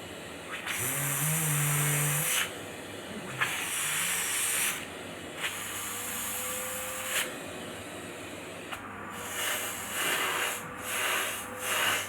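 Vacuum cleaner running with a faint steady whine, its airflow hissing in repeated surges of a second or two that grow shorter and quicker near the end.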